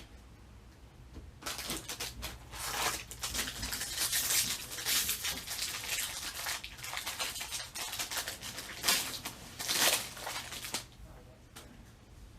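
Rustling and crinkling of baseball card packs and cards being handled. It starts about a second and a half in, has two louder bursts near the end, and then stops.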